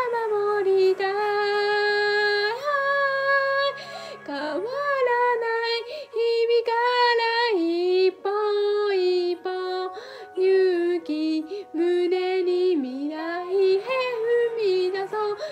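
A woman singing a Japanese pop song over a backing track, with long held notes and vibrato.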